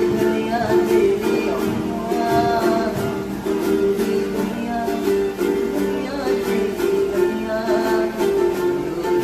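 Background music: a tune of repeated short plucked notes, with a melody line gliding above it.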